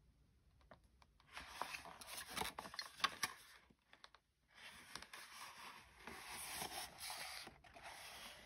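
Cardboard whisky gift box rubbing and scraping against the hands as it is handled and turned over, in two stretches with a short pause between, with a few sharp ticks in the first stretch.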